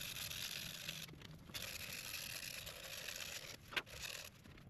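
Sandpaper rubbing on a purpleheart pen blank spinning on a wood lathe: a steady scratchy hiss that breaks off twice briefly, with a sharp click about four seconds in.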